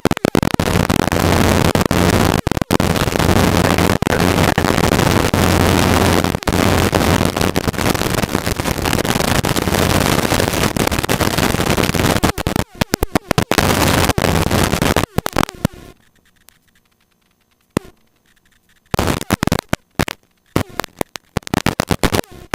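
Loud, steady helicopter cockpit noise with a low hum, heard through the recording feed. About twelve seconds in it starts cutting out. It drops to near silence for a few seconds, then returns in choppy bursts.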